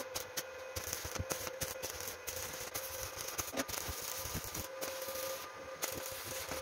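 Stick (arc) welding on a steel tube frame: the arc gives a steady crackling, sputtering hiss, broken briefly a few times as the electrode is struck and restarted.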